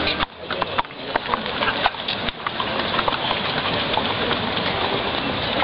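Horses' hooves knocking on a wet tarmac street, many short sharp strikes over a steady outdoor crowd hubbub.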